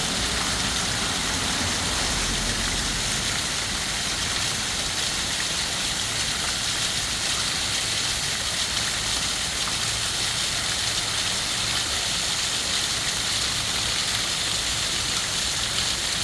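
Steady rushing of water, an even hiss without rhythm or breaks.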